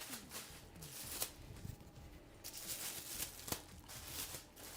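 Faint plastic rustling and crinkling of a shower cap being handled and adjusted over the hair, with a couple of sharp clicks.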